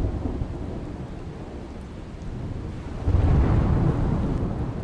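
Thunder rumbling over a steady rain-like hiss, swelling louder about three seconds in.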